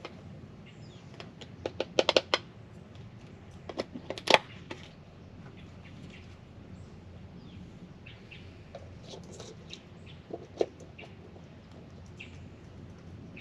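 Sharp clicks and knocks of camp cookware being handled: a quick run about two seconds in, another about four seconds in, and a single knock later on. Faint bird chirps sound in the background.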